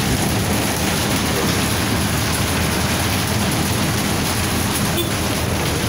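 Hail and rain beating on a bus's roof and windows, a dense, steady hiss over the low hum of the bus running.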